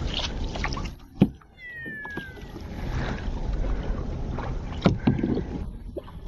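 Canoe out on the sea: water splashing and swishing around the boat as it is paddled, with two sharp knocks, one about a second in and one near the end, and a short falling whistle about a second and a half in.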